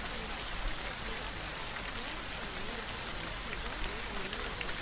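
Soft rain recording, an even, steady patter, with a faint, indistinct voice wavering underneath: the quiet layered affirmations of a subliminal track.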